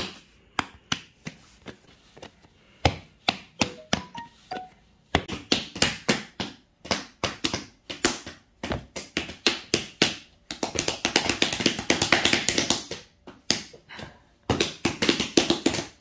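Hands slapping and patting a block of mashed boiled soybeans to press it into a meju brick. The dull slaps are sparse at first, then come about three a second, with a rapid flurry about two thirds through.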